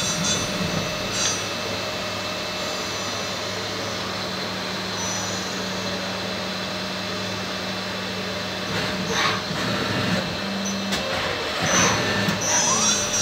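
Tsugami CNC lathe powered up, with a steady machine hum. A clunk comes right at the start, and bursts of motor whine and clatter come about 9 seconds in and again near the end, one whine rising in pitch.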